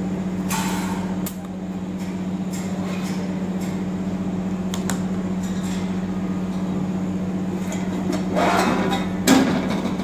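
TIG welding set humming steadily at a low pitch, with scattered light clicks. Near the end comes a clatter and a knock as the torch and hand tools are put down on the steel bench.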